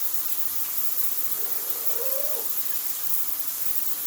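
Shower water running steadily, with one short, low hoot-like call from a yellow-naped Amazon parrot that rises and falls about two seconds in.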